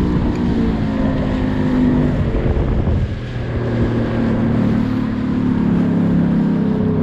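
A small skiff's outboard motor running, throttled back about two to three seconds in so that its pitch drops and then holds lower as the boat slows.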